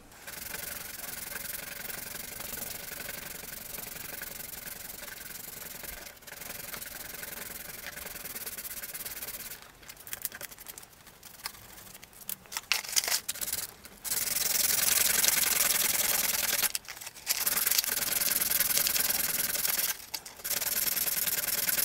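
Small styrene plastic pieces being shaped by hand with files and sandpaper: a steady scratchy rasp. Near the middle it breaks into short separate strokes, then it goes on louder for the rest.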